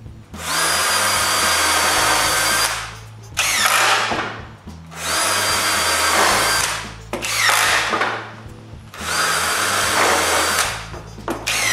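Cordless drill driving screws into wood in three runs of about two seconds each, each run ending in a shorter, slower stretch as the screw goes home.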